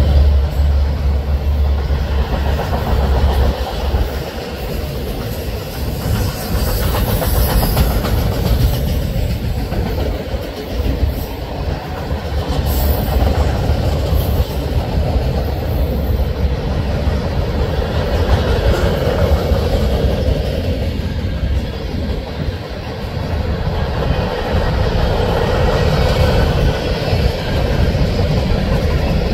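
Freight train cars (autoracks, a tank car and covered hoppers) rolling past close by: a steady rumble of steel wheels on rail with the clickety-clack of wheels over rail joints.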